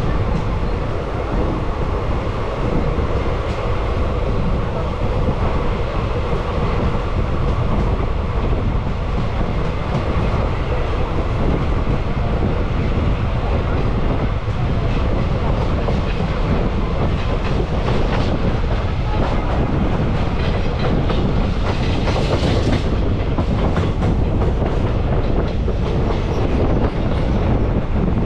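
Express passenger train running along the line, heard from aboard a coach: a steady rumble of wheels on the rails with a continual clickety-clack of rail joints.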